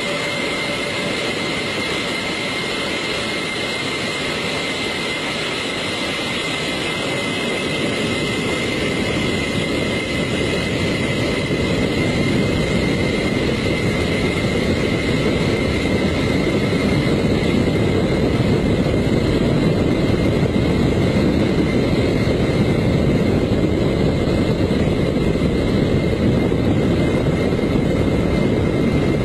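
Large Antonov cargo jet taking off, heard from under the fuselage: a steady rush of jet-engine and airflow noise with a thin high whine, slowly growing louder as the aircraft rolls and lifts off.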